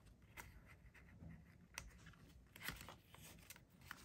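Near silence with a few faint, short rustles and ticks of paper dollar bills being handled.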